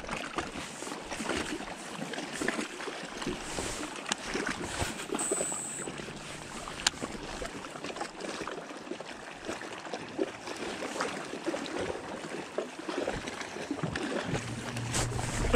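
Small waves lapping and slapping against a fishing boat's hull, with scattered light clicks and a brief high whine about five seconds in.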